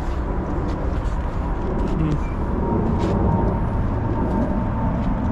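Steady low outdoor rumble, with a faint steady tone above it and a few light clicks.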